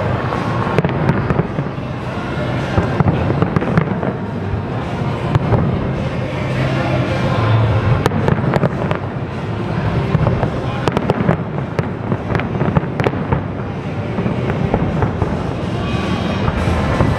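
Large-scale fireworks display in a continuous barrage: many sharp cracks and reports one after another over a steady low rumble of bursting shells.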